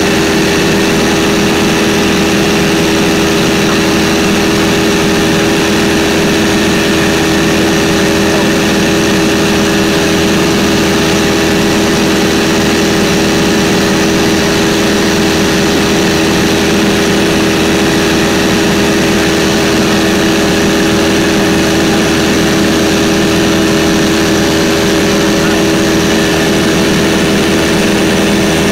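Cabin noise of a 1946 Stinson 108 light aircraft in flight: its six-cylinder Franklin engine and propeller droning loudly and steadily.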